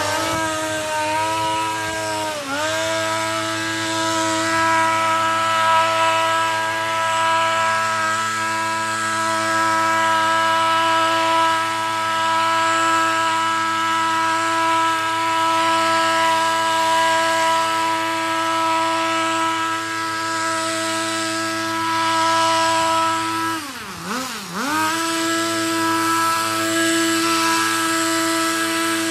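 Gas hedge trimmer's small two-stroke engine running at high throttle, with its pitch dropping and climbing back as the throttle is eased off and squeezed again, about two seconds in and again near the end.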